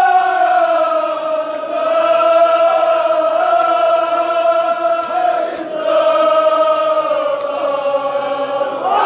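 Group of men chanting a Kashmiri marsiya (Shia lament) together in long drawn-out phrases, each note held and sinking slightly in pitch, with short breaks between phrases.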